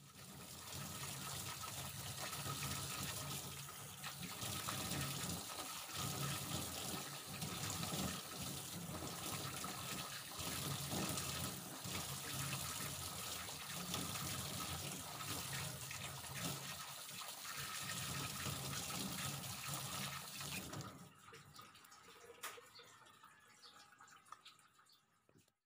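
Water running and splashing faintly as someone washes up at a bathroom sink, for about twenty seconds. The water then stops, leaving near silence with one soft click.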